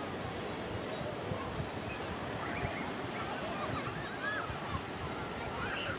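Waves washing on a shore in a steady rush of surf. Faint high, curling calls come and go over it through the middle.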